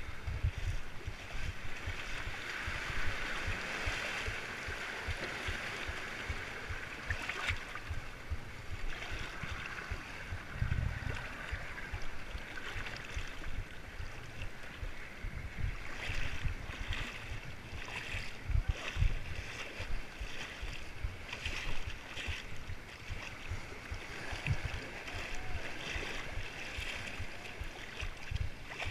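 Small sea waves sloshing and lapping right at the microphone, with frequent low thuds and rumbles from wind buffeting or handling.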